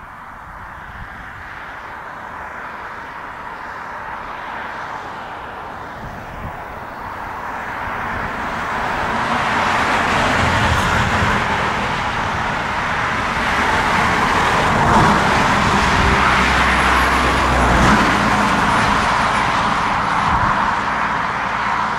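Airbus A340-300's four CFM56 turbofan engines at take-off power as the airliner begins its take-off roll. The jet noise swells steadily over the first ten seconds, then holds loud with a deep rumble underneath.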